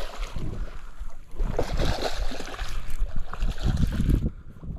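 Hooked barramundi thrashing and splashing at the surface of the water, in irregular bursts that ease off near the end, with wind noise on the microphone.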